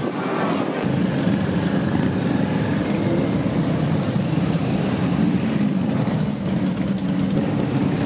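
Many motorcycle engines running together in a slow-moving parade, a steady mixed drone without a break.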